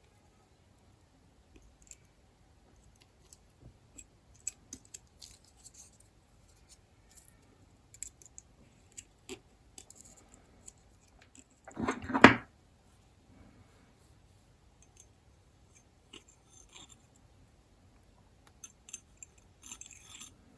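Scattered light clicks and metallic clinks of a folding pocket knife's small parts and tools being handled, with one louder half-second rattle about twelve seconds in.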